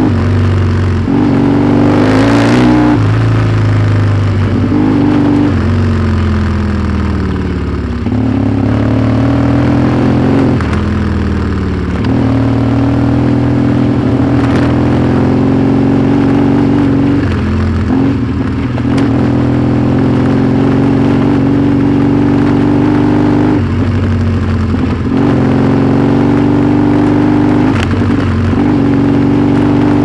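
Yamaha XTZ 750 Super Ténéré parallel-twin engine running under changing throttle: its pitch climbs and falls several times, with abrupt drops as it changes gear or eases off. A few brief knocks sound over the engine.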